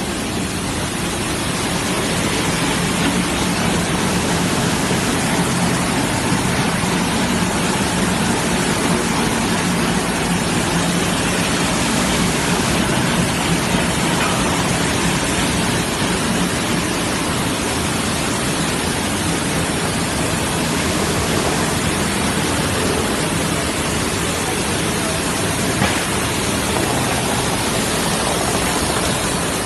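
Profile sanding machine running, its sanding wheels and strip-sanding heads spinning over moulded panels: a steady, even rushing noise with a low hum under it.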